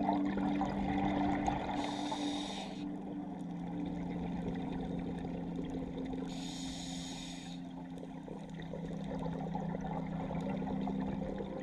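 Scuba diver breathing through a regulator underwater: two hissing breaths about four and a half seconds apart, over background music with sustained low notes.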